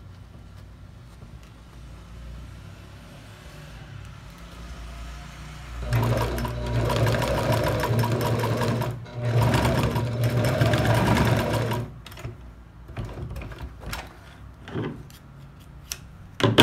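Compact electric sewing machine stitching a seam, running in two stretches of about three seconds each with a brief stop between. Afterwards a few scattered clicks and knocks as the fabric is handled, and one sharp knock at the end.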